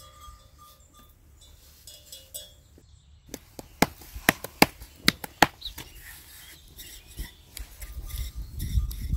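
Flatbread being baked on a domed iron saj griddle over a small wood fire: about a third of the way in comes a quick run of about seven sharp crackles and taps, then a low rumble builds near the end.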